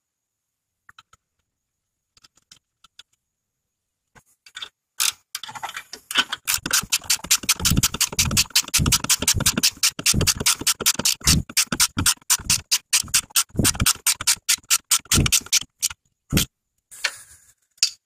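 Socket ratchet wrench clicking rapidly, about five clicks a second, as it turns a nut on the bolt joining the strut to the steering knuckle. A few scattered clicks come before it starts about five seconds in, and a single sharp knock follows soon after it stops.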